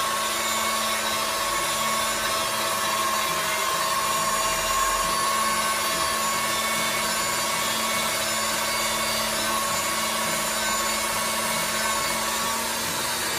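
Electric pasta roller's motor running steadily, with a low hum and a higher whine, as a sheet of egg-pasta dough passes through its rollers.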